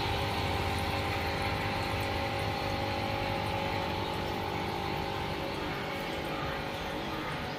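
Small electric pump running with a steady hum, slightly quieter towards the end.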